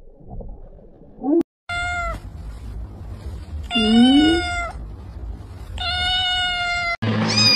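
Cat meowing three times, starting about two seconds in and roughly two seconds apart. The middle meow is the longest and loudest.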